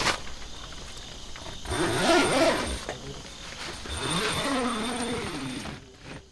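Two drawn-out animal calls, each rising and falling in pitch, the second starting about two seconds after the first. Steady insect trilling runs underneath, and there is a click at the very start.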